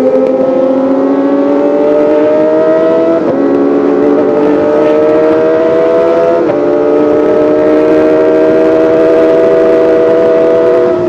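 Kawasaki ZX-25R's 249 cc inline-four engine accelerating hard through the gears as a high wail that rises in pitch. It drops sharply at two upshifts, about three and six and a half seconds in, then climbs slowly and holds near the top.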